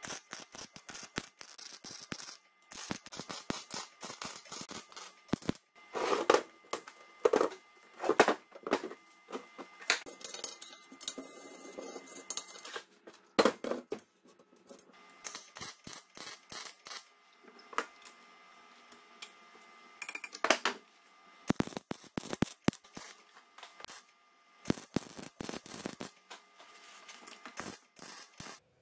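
Electric arc welding crackling in short runs on a metal square-tube frame, with one longer run midway, alternating with clanks and knocks of metal parts being handled and set in place.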